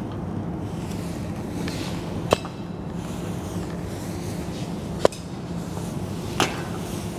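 Three sharp knocks of hard plastic, a couple of seconds apart, as a young chimpanzee handles and pulls at a plastic ride-on toy horse, over a steady low hum.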